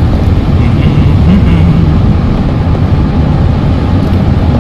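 Steady road noise heard from inside a car cruising at freeway speed: a loud, even rumble of tyres and engine.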